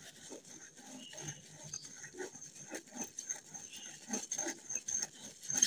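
A spatula scraping and pressing white ammonium chloride powder against the bottom of a metal pan, in short irregular scrapes and clicks several times a second.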